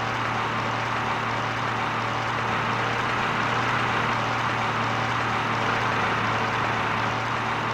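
A vehicle engine running steadily, a constant low hum under an even hiss.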